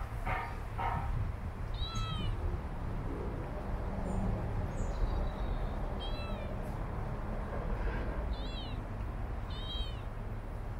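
Kitten meowing: four high, thin meows spread over several seconds, each rising then falling in pitch, over a steady low rumble. A quick run of short calls sounds at the very start.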